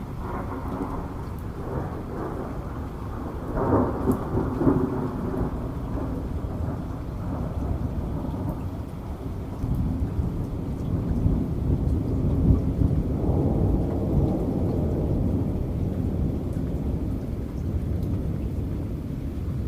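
Heavy rain with thunder rumbling on and on, swelling louder about four seconds in and again after about ten seconds.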